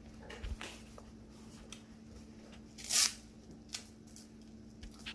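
Rustling and small clicks as a new fabric cap and its wrapping are handled, with one louder, short scratchy rustle about three seconds in, over a faint steady hum.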